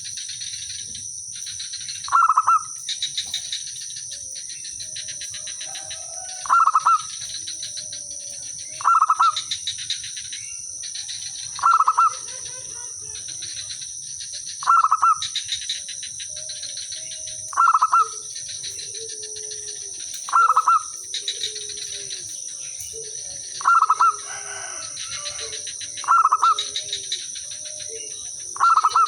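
Zebra doves calling: a loud short call repeats about every two to three seconds, with fainter answering calls between them that grow busier in the second half, over a steady high hiss.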